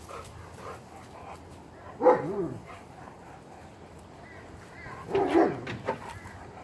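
Rottweiler puppy barking in two short bouts, about two seconds in and again about five seconds in, with fainter small sounds between them.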